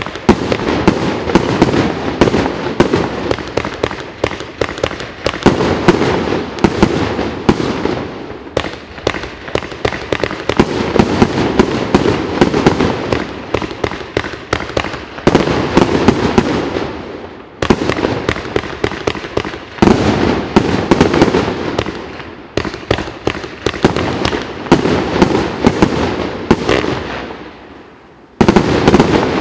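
A 49-shot cake firework with 30 mm tubes firing a rapid, continuous run of shots as stars launch and burst overhead. There are short lulls about 17 and 28 seconds in, then one last loud shot before the sound fades.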